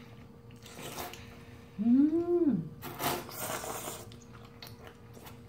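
Udon noodles slurped off chopsticks: a short slurp about a second in, then a longer, louder slurp around three seconds in. Between them, about two seconds in, a brief 'mmm' hum of enjoyment that rises and falls in pitch, the loudest sound.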